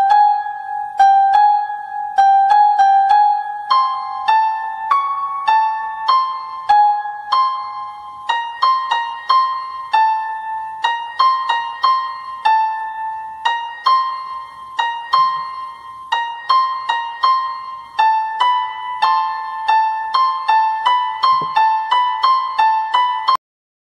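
Background music: a melody of single high, plucked-sounding keyboard notes in a steady run, cutting off abruptly near the end.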